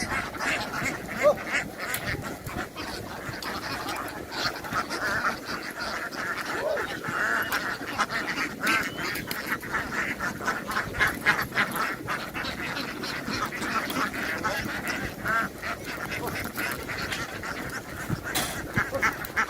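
A large flock of domestic ducks quacking, many calls overlapping into a continuous din.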